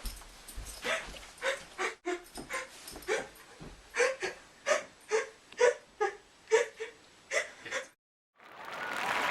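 A string of short whimpering cries, about two a second. Near the end the sound cuts out briefly and a rising rush of noise begins.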